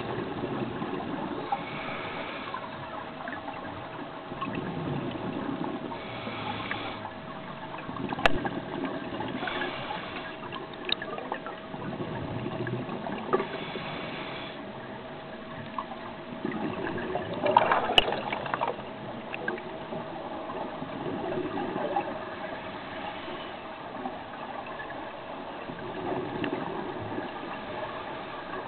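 Scuba divers breathing underwater through their regulators: exhaled bubbles gurgle out in bursts every few seconds, the biggest about two-thirds of the way through. A faint steady hum runs underneath.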